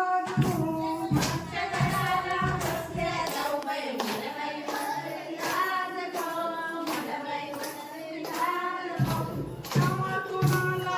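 Voices singing a fugdi folk song together, over steady rhythmic hand clapping.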